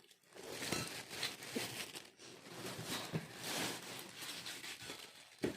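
Gift packaging being handled and opened: crinkling and rustling of wrapping with a few sharp clicks.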